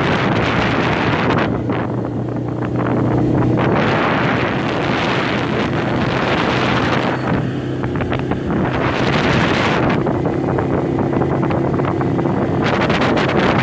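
ATV engine running steadily as it rides along a dirt trail, a low steady hum under heavy wind buffeting on the microphone. The wind noise drops back in stretches, letting the engine hum come through more plainly.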